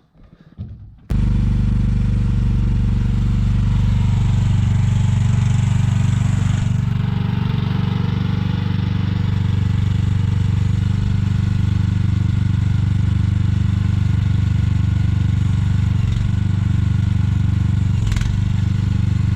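Mini excavator's engine running steadily at a low, even pitch, cutting in suddenly about a second in.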